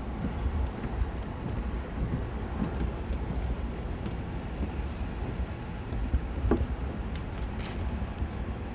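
Wind buffeting the microphone of a handheld camera as it is carried along, a steady low rumble with a few light knocks from handling and footsteps.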